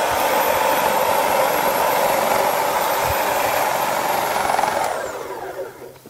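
Electric hedge trimmer running steadily with a high whine as its reciprocating blades cut through ripe wheat stalks. Near the end it is switched off and winds down, the whine falling in pitch.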